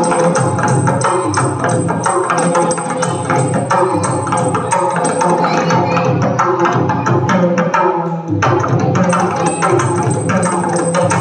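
Yakshagana percussion: maddale barrel drums played with fast, dense strokes over a steady drone, with a brief break in the drumming about eight seconds in.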